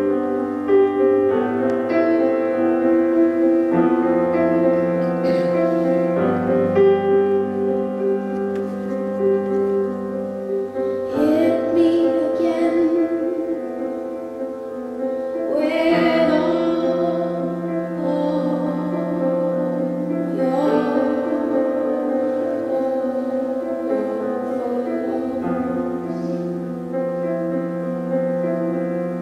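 Live song: a woman singing over long, sustained keyboard chords, the voice entering about a third of the way in.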